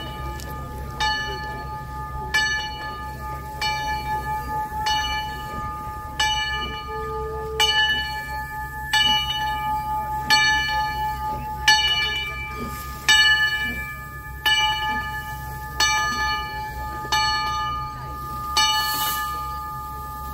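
Steam locomotive bell ringing steadily, struck about once every 1.3 seconds, each stroke ringing on into the next, over a steady low rumble.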